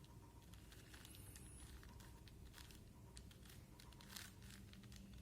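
Faint, irregular clicks and rasps of a plastic 4x4 Rubik's cube as its layers are turned by hand.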